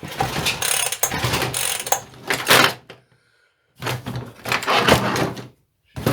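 Handling and refitting the parts of a Partner T240 strimmer, with plastic and metal parts clattering and clicking in bursts. It stops dead for a moment about three seconds in, then the clattering picks up again.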